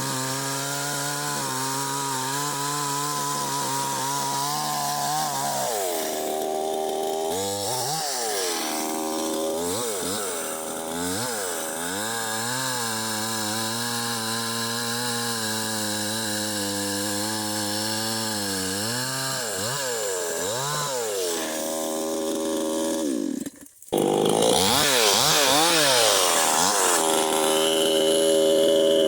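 Two-stroke chainsaw cutting into a tree, its engine note held steady under load, then rising and dipping over and over as the bar works through the cut. Near the end the sound drops out for an instant and returns louder and harsher.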